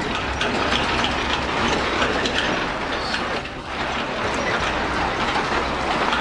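Earthquake shaking: a steady low rumble under dense, continuous rattling and clattering.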